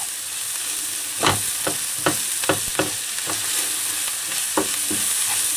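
Diced onions, ground spices and tomato paste sizzling in hot ghee in a frying pan, stirred with a wooden spatula that knocks and scrapes against the pan several times over a steady hiss.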